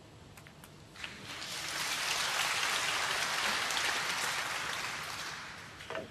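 Audience applauding in a snooker arena, swelling up just after a sharp click about a second in, holding for a few seconds and dying away near the end, where a few more clicks follow.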